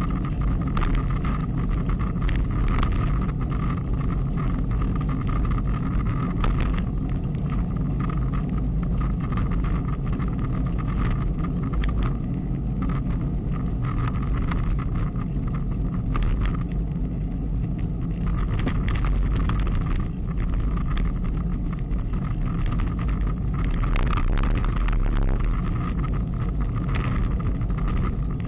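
Wind buffeting an action camera's microphone on a moving road bicycle, over steady tyre and road noise. Short clicks and rattles come frequently throughout.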